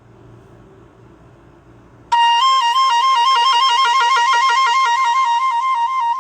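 Faint low hum, then about two seconds in a Nokia E5 ringtone starts suddenly and loudly. It is an electronic melody of high notes alternating quickly, about four or five changes a second.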